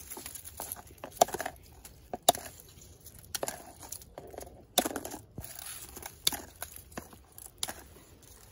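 Scissors snipping dry pea pods from brittle, dried-out pea vines, with sharp irregular clicks and dry rustling of the papery pods and leaves as the pods drop into a plastic container.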